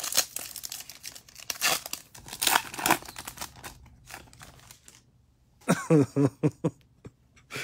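Foil wrapper of a baseball card pack crinkling and tearing as it is ripped open by hand, a dense crackle that dies away after about four seconds.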